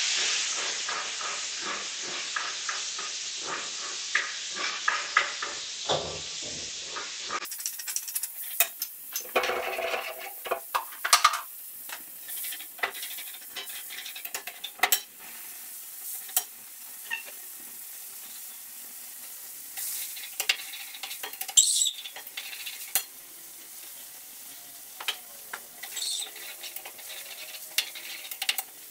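Food sizzling in a pan on a gas stove while a utensil stirs it, scraping and clinking against the pan many times. The hiss is louder for the first seven seconds or so, then drops to a quieter steady sizzle.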